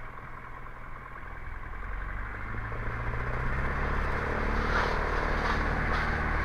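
Small plane's engine with power coming up from about two seconds in, rising to a steady high-power run as for the takeoff roll.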